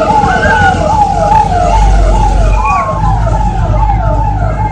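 Fire truck siren sounding a fast, repeating falling wail, about two to three sweeps a second, over a steady tone, with the low rumble of the truck's engine beneath.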